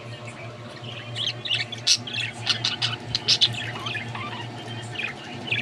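Pet budgerigars chirping and squawking in quick, irregular calls, over a steady low hum.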